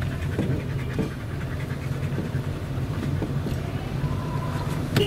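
Siberian husky panting rhythmically over the steady low hum of the car in motion.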